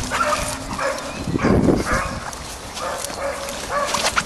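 A dog giving a rapid series of short, high yapping calls, about two to three a second, as if excited. A brief low rumble comes about a second and a half in.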